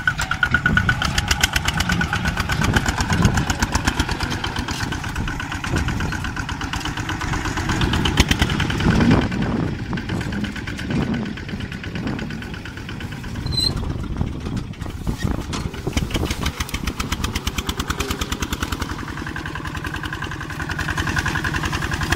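Small tractor's engine running under load while tilling and disc-ploughing soil, a rapid even chugging beat that swells and eases in loudness, loudest about halfway through.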